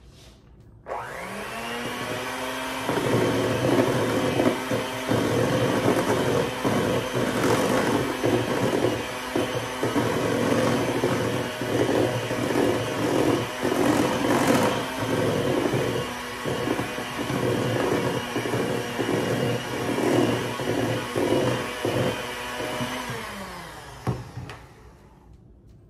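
Electric hand mixer starting about a second in with a rising whine, then running steadily as its beaters work butter and powdered sugar into buttercream frosting in a stainless steel bowl. Near the end the motor winds down and stops.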